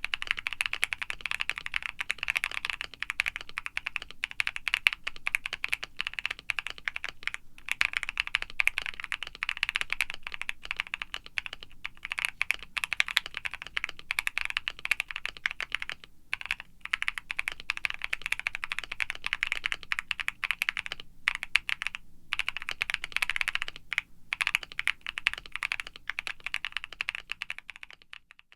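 Continuous fast typing on a mechanical keyboard: an aluminum Luminkey75 with polycarbonate plate, full foam dampening, lubed Akko Creamy Lavender Pro tactile switches and PBT keycaps. Dense keystroke clicks with a few short pauses.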